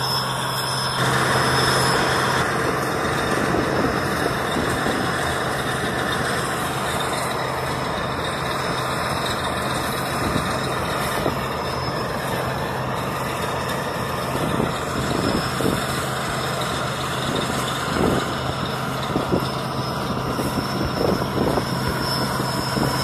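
New Holland 8060 combine harvester running steadily while harvesting rice: a constant machine drone with a low hum and a thin high whine, and a few short thumps in the later part.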